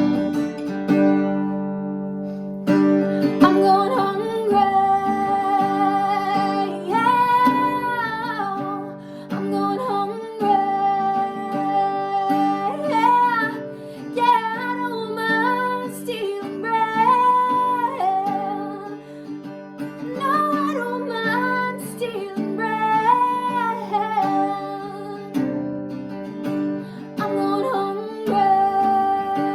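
A woman singing long, held and gliding notes over a strummed acoustic guitar. For the first few seconds the guitar plays alone.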